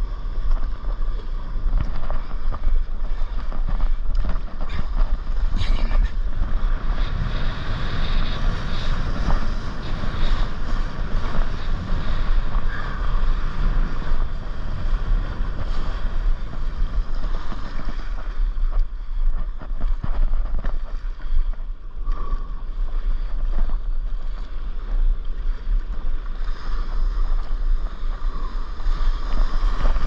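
Wind buffeting the microphone with a steady low rumble, over the rush and splash of sea water around a stand-up paddleboard crossing waves.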